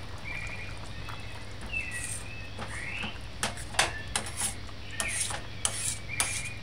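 A metal spoon stirring thick curry stew in a stainless-steel saucepan: short high squeaky scrapes of the spoon along the pot in the first half, then a run of sharp clicks and knocks of metal on metal.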